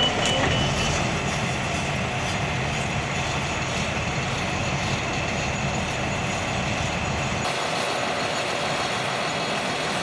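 Steady heavy-machinery noise from the Pezzolato PTH 900 drum chipper's IVECO six-cylinder engine running, with an excavator working at its infeed. A high, evenly repeating warning beep sounds in the first second, and the deepest part of the sound drops away about seven and a half seconds in.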